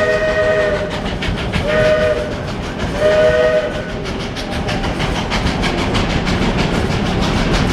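Steam locomotive whistle sounding a chord: the end of one long blast, then two short blasts. Then the running train takes over with a fast, even rhythmic clatter.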